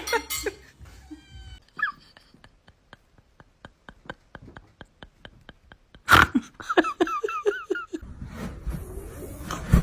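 A domestic cat meowing: a short call about a second in, then a quick run of about six short chirping meows after six seconds. Between the calls there is a steady light ticking, about four clicks a second.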